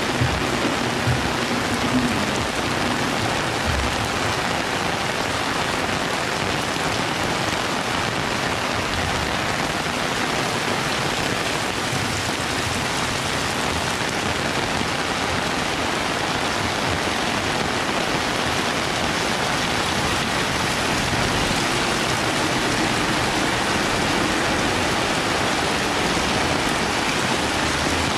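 Heavy rain falling steadily: an even, dense hiss of downpour with no let-up.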